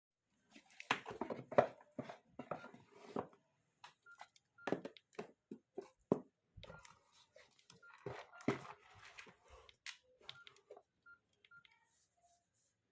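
Nokia E52 mobile phone being handled: irregular clicks and rustles with short, high keypad beeps now and then, thinning out near the end.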